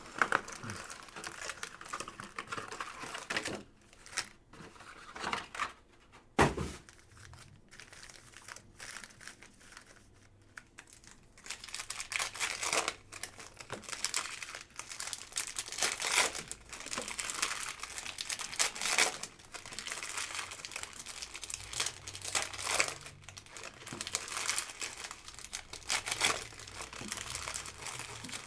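Plastic wrapping of Optic Hobby football trading card packs crinkling and tearing as it is opened by hand, in irregular bursts. One sharp knock comes about six and a half seconds in.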